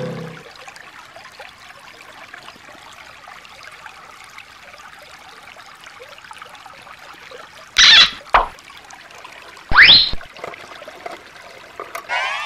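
Shallow stream water trickling over stones, steady and low. About two-thirds of the way in come two loud, brief sweeping sounds, the second a quick upward swoop, and a short burst just before the end.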